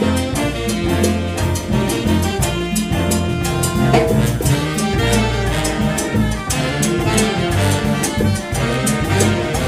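Latin jazz big band playing a jazz arrangement of a Mexican jarabe. Saxophone, trombone and trumpet sections play over a drum kit with a steady beat.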